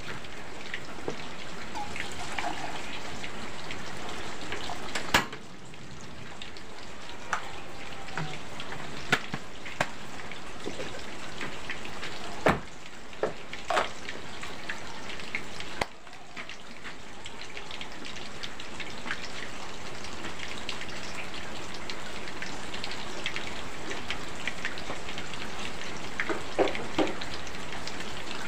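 Steady rain falling, with a few sharp knocks scattered through.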